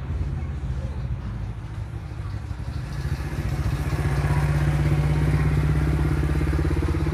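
A motor engine running steadily with a fast, even pulse, getting louder about four seconds in.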